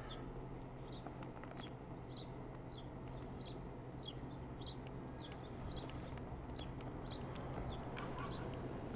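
A bird chirping repeatedly: short, high, falling calls about twice a second, over a faint steady low hum.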